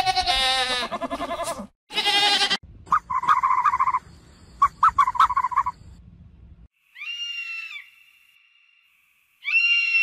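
Goats bleating: a long wavering bleat and then a shorter one in the first few seconds. They are followed by other animal sounds, ending with two short high-pitched calls near the end.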